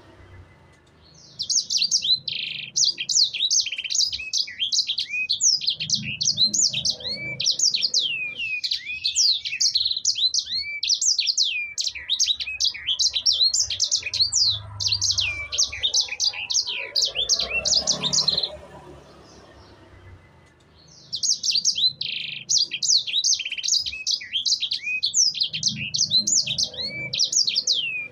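A sanger songbird singing a long, rapid run of high chirps and sweeping whistled notes. It pauses for a couple of seconds about two-thirds of the way in, then starts a second long phrase.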